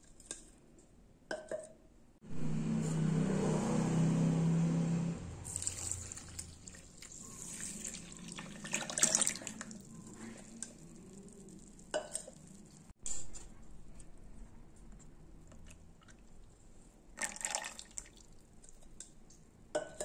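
Liquid ingredients poured into a plastic blender jar over sugar, pouring and splashing in stretches, with a few short knocks in between.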